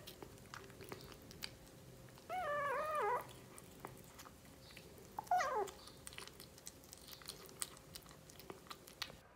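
Kitten meowing twice. The first call, about two seconds in, wavers for nearly a second; the second, about five seconds in, is shorter and falls. Faint ticks and chewing sounds from the kitten eating come between the calls.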